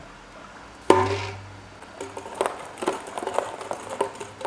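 A sharp hollow knock about a second in, ringing on inside a PVC tube, then an irregular run of light clattering knocks as ping pong balls are poured into the tube.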